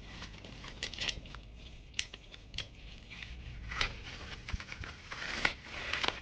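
Tyre levers clicking and scraping against a bicycle wheel rim as the tyre is prised off, in irregular sharp snaps and short scrapes.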